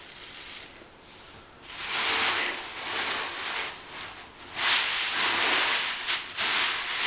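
Loose foam beads rustling as they shift, in two bouts: one about two seconds in and a louder one from about four and a half seconds.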